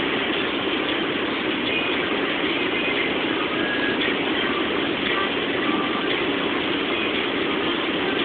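Steady rush of wind and tyre noise inside a Mercedes-Benz C-Class cabin at high Autobahn speed, with the engine running underneath.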